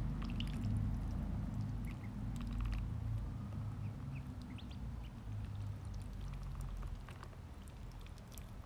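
Ducklings giving scattered short, high peeps while pecking and shuffling in wood shavings, with brief clicks and rustles. Under them runs a steady low hum that slowly fades.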